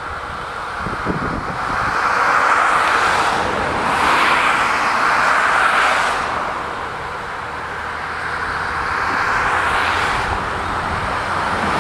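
Turkey Point nuclear plant outdoor warning siren sounding its test tone. It is loud and steady in pitch, swelling and fading in loudness every few seconds.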